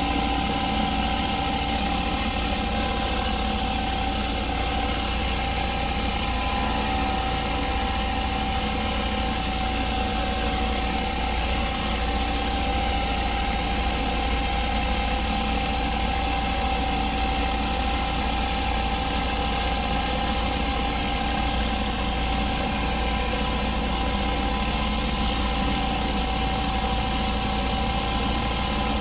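Pressure washer engine running steadily at constant speed, one unbroken tone with no change in pitch or level.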